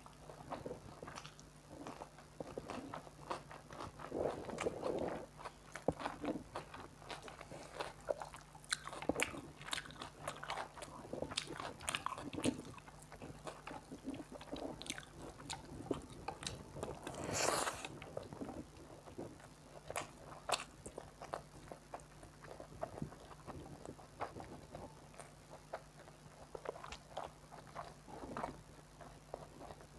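Close-miked eating sounds of rice with egg curry: irregular wet chewing, mouth clicks and smacks, with one louder noisy slurp or bite about halfway through.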